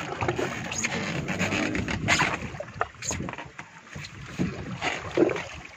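Noise aboard a small boat at sea: a steady rush of wind and water with a low rumble, broken by scattered knocks and clicks, the loudest about two, three and five seconds in.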